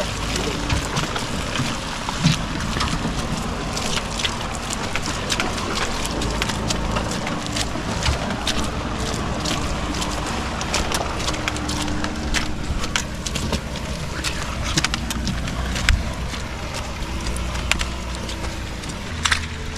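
Vehicle engine running steadily over a rough road, with wind noise on the microphone and many small knocks and clicks.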